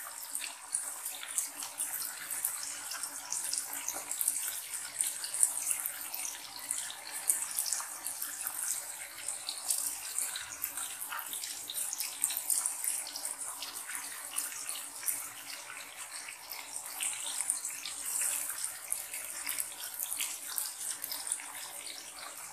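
Onions, tomatoes and whole spices sizzling steadily in hot oil in a kadhai, a continuous crackle of many small pops and spits as the masala fries.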